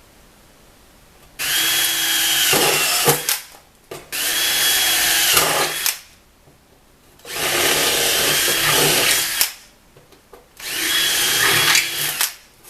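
Power drill run in four bursts of about two seconds each, drilling the marked screw holes for the glove box latch repair. Its motor whine rises at each start and drops as it stops.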